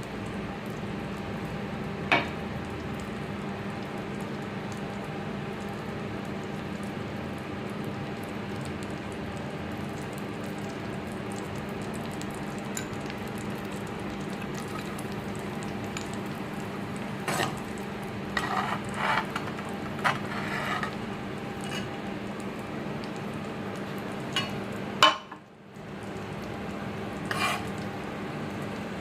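Garlic sizzling in melted butter in a hot frying pan, a steady frying hiss. A utensil scrapes and clinks against the pan now and then: once about two seconds in, in a cluster in the second half, and with one sharp knock a few seconds before the end.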